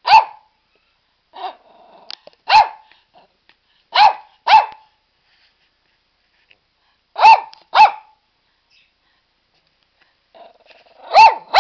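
Small Shih Tzu barking: about eight short, high barks, several coming in quick pairs, with pauses of up to three seconds between them.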